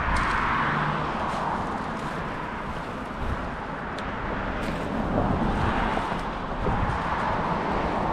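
Road traffic: cars passing, their tyre and engine noise swelling near the start and again in the second half, with a couple of faint clicks.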